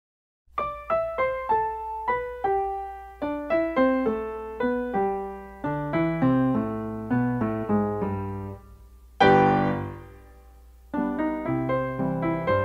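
Background piano music: a run of single notes in a quick, steady rhythm, a loud chord about nine seconds in that fades out, then the notes start again.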